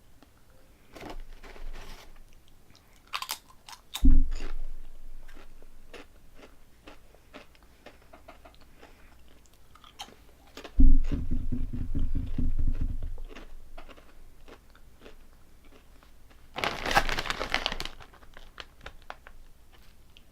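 Close-up crunching and chewing of crisp honey butter potato snacks, a stream of short crunches. A sharp low thump comes about four seconds in, a long low burp about eleven seconds in, and a brief rustle near the end.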